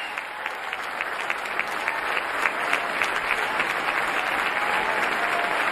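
Large audience applauding: many people clapping at once in a steady, dense patter, with some individual claps standing out.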